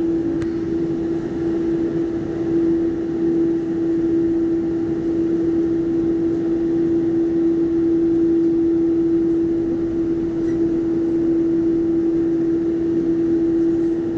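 Boeing 747-400 cabin noise during taxi, with the engines at idle: a steady rumble and one strong, steady droning hum.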